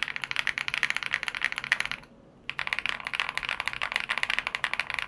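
Fast typing on a Sun68 mechanical keyboard with stock Flower Shadow switches, a PC plate and ABS double-shot keycaps: a quick run of key clacks, a short pause about two seconds in, then another fast run.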